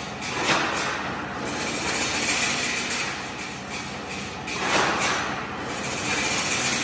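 Automatic chain link fence weaving machine running, a continuous mechanical clatter. It swells louder briefly twice, about half a second in and again about five seconds in.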